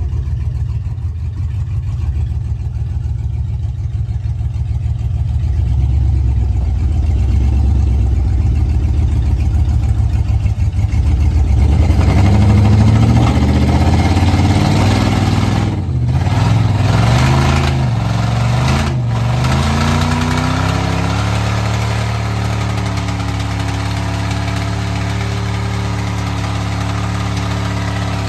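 Jeep engine running as it crawls over rock. From about twelve seconds in it revs up and down, then it settles to a steady idle over the last several seconds.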